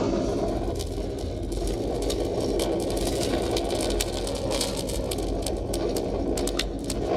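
Small kindling fire catching and crackling, with many sharp snaps over a steady low rumble.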